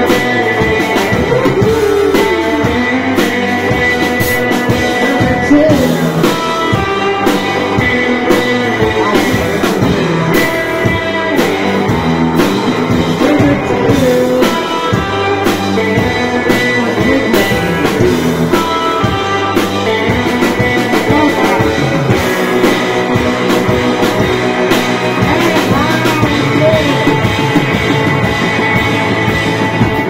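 A rock band playing live, loud: electric guitars and a drum kit driving a rock and roll song, with a singer's voice over it.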